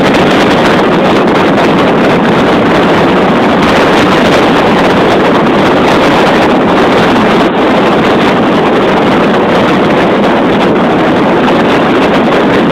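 Strong wind buffeting the microphone: a loud, steady rush with no let-up.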